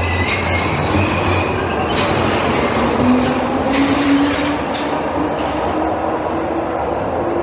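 Glasgow Subway second-generation Metro-Cammell train pulling out of the platform into the tunnel. Its wheels rumble, with high wheel squeal in the first second or so and a whine that rises in pitch as it speeds away.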